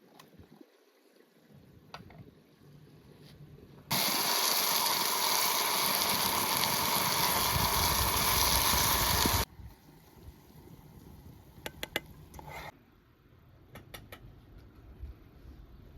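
A steady rushing noise starts suddenly about four seconds in and cuts off about five and a half seconds later. Light clicks and knocks sound before and after it.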